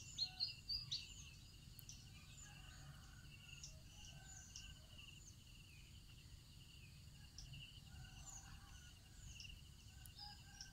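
Rural ambience: a steady, faintly pulsing insect trill with scattered bird chirps and calls above it, a few louder chirps in the first second.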